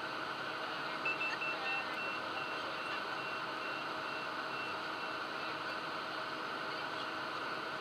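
Steady rush of airflow and engine noise inside a twin-turbofan Cessna Citation's cockpit on final approach. About a second in, a run of short high beeps starts, about three a second, and fades out about five seconds in.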